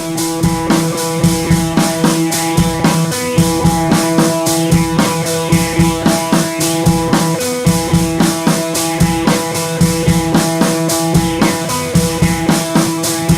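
Rock-style background music with a steady drum beat, bass drum and guitar.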